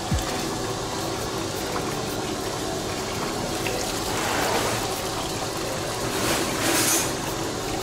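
Kitchen tap running in a steady stream onto cooked fusilli in a perforated stainless steel pasta basket, rinsing the pasta. The rush swells a little about four seconds in and again near the end.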